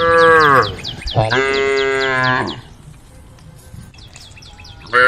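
Cattle mooing: three loud calls, each sliding down in pitch, the middle one the longest, with a quick, high repeated chirping behind them.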